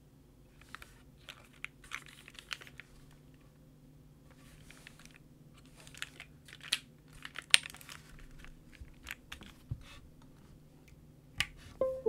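Handling noise from a Windx65 mechanical keyboard being held and turned over in the hands: scattered light clicks, taps and rattles of fingers and keycaps against the case. Two sharper knocks near the end as it is set down on the desk mat.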